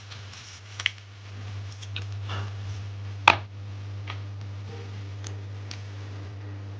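Scattered small clicks and taps, with one sharp, louder click a little over three seconds in, over a steady low hum.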